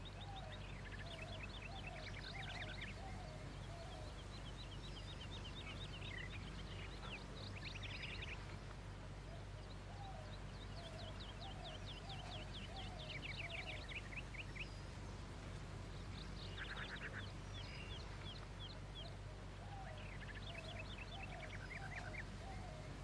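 Faint bird calls: quick high chirps and trills, and a lower call repeated in short runs of about six notes three times, over a steady low hum.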